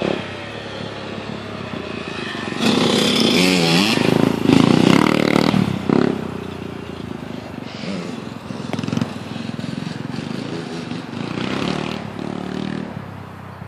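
Dirt bike engines, a Suzuki RM100 and a DR-Z125, revving up and down as the bikes ride past. The loudest pass comes about three to six seconds in, with a smaller rise near the end.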